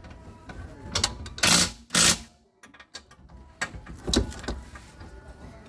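Metal clinks, knocks and scrapes of a rear hub and wheel-bearing assembly being handled against the drum-brake backing plate, its studs and bolts knocking on the steel. A handful of separate knocks, the loudest two about a second and a half and two seconds in.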